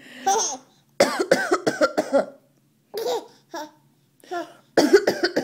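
A woman coughing in short fits, and a baby laughing in high giggles in response, in two bouts: about a second in and again near the end.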